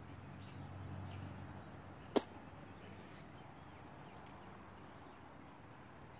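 Faint bird chirps over a low background hum, with one sharp click about two seconds in as the loudest sound.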